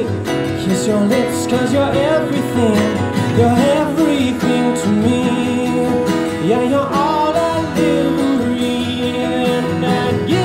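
Live acoustic pop song: strummed acoustic guitar and a Yamaha keyboard, with a male voice singing over them.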